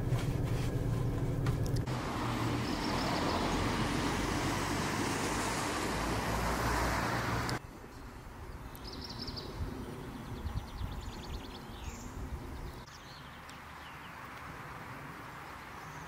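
Roadside ambience: a car passing on the road, its tyre and engine noise swelling over a few seconds, then cut off abruptly about seven and a half seconds in, after which only quiet outdoor background with a few short high chirps remains.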